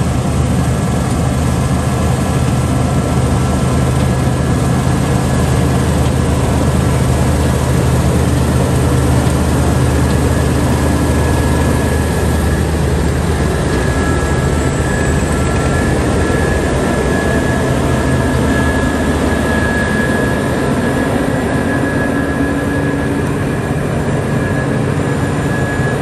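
Claas Lexion 770 combine harvester running at working revs while cutting a standing cereal crop: a loud, steady engine drone with a thin high whine over it.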